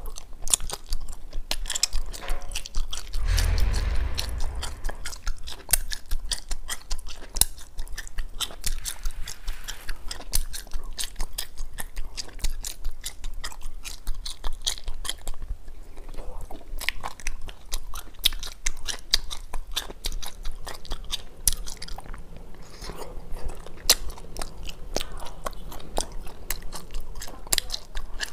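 Biting and chewing of wax bottle candy: the wax shells crack and crunch in many quick, sharp clicks. A dull low thump comes about three seconds in.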